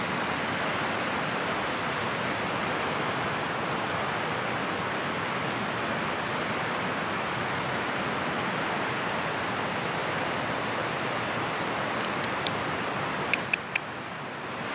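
Steady, even rushing noise. Near the end come three sharp ticks in quick succession.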